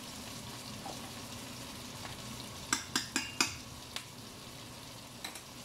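Dried salted fish (tuyo) sizzling steadily in oil in a frying pan, while a metal spoon stirs thick porridge in a pot. About three seconds in, the spoon knocks against the pot four times in quick succession, with a few lighter clinks after.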